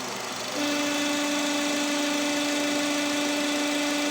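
The 2.0-litre engine of a Nissan Terrano is running. About half a second in, a steady buzzing whistle starts up and holds as the dipstick is pulled and air is drawn into the crankcase. The crankcase is under vacuum because its ventilation (PCV) valve has a torn membrane.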